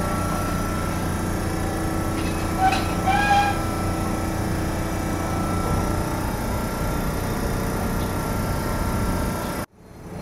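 Steady hum of a stationary Tokyo Sakura Tram 8900-series car's onboard equipment, with a few fixed tones in it, waiting at the platform. Two short high-pitched sounds come about three seconds in, and the sound cuts off suddenly near the end.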